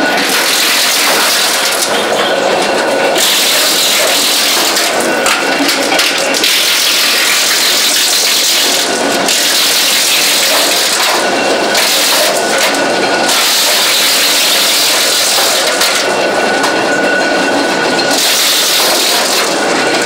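Belt-driven wood chipper with an electric motor running while it chips wood: a loud, continuous noisy rush that eases and comes back every few seconds as the wood going through changes.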